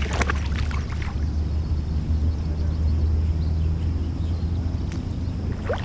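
Rubber boots wading in shallow lake water, with sloshing and splashing in the first second or so, over a steady low rumble.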